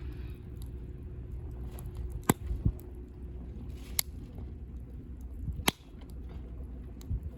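Wood campfire burning, with a few sharp crackling pops, about four loud ones, over a low steady rumble.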